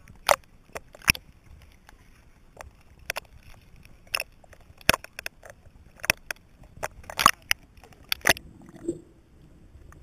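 Small waves slapping and splashing against a waterproof camera bobbing at the waterline, about a dozen sharp irregular splashes. Near the end the splashing gives way to dull, muffled sound as the camera goes under water.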